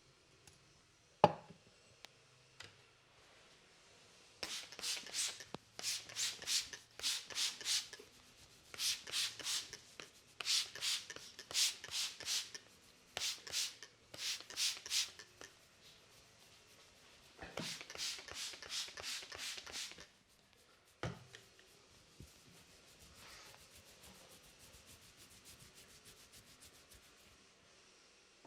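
Hands rubbing briskly over hair and scalp in a head massage, in runs of quick back-and-forth strokes about two to three a second, with pauses between the runs. A single sharp click comes about a second in and another later on. Near the end the strokes turn fainter and faster.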